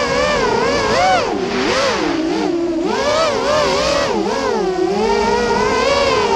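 FPV racing quadcopter's motors whining. The pitch swings up and down rapidly with throttle and dips lowest in the middle.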